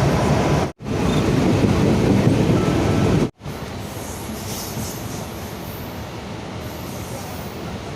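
Mumbai suburban electric local train running, heard from on board: a loud rumbling and rattling of the carriage and wheels. It cuts off abruptly twice, and after the second break the running noise is quieter, with faint high wheel squeal.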